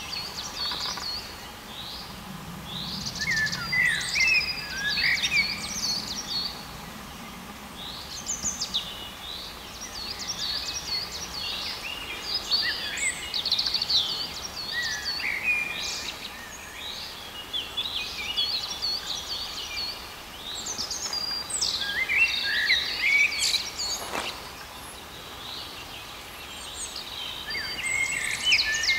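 Several wild songbirds singing in overlapping phrases of quick chirps and trills, over a steady outdoor background hiss.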